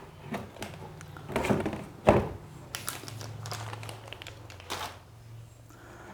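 Packaging being handled: several short crinkling and rustling bursts, with a sharper knock about two seconds in.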